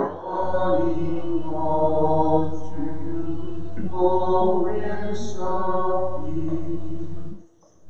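Slow chant-style singing with long held notes. It breaks off briefly near the end.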